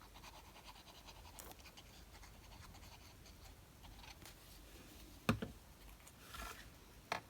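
Faint scratching and rustling of paper and card being handled on a craft desk, with a couple of light taps about five seconds in and again near the end.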